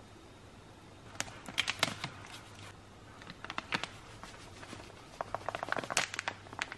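Spice containers shaken and tapped over a pan, giving clusters of quick clicks and rattles about a second in, briefly in the middle and more densely in the last two seconds, over a faint low hum.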